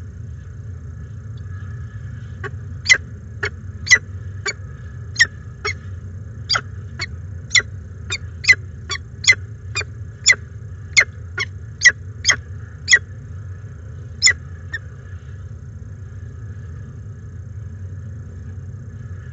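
Peregrine falcon calling at the nest during a feeding: a series of about twenty short, sharp calls, roughly two a second, that stops about three-quarters of the way through. A steady low hum lies under it.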